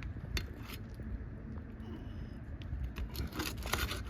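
Scattered clicks and scraping of a pry bar working on asphalt roof shingles and their nails, with a few sharp clicks early and a busier run of scrapes and clicks near the end, over a steady low rumble.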